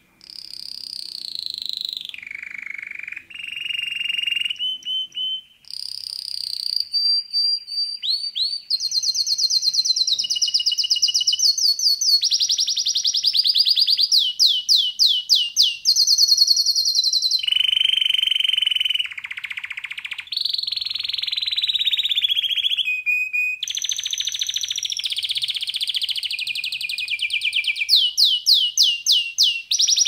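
Canary singing a long song of high, fast trills and rapid runs of repeated notes, each phrase shifting in pitch every few seconds, with a few brief pauses.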